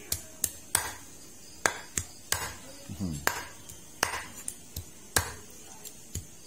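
Meat cleaver chopping raw chicken and giblets on a wooden chopping board: sharp, irregular knocks of the blade striking the board, about two a second.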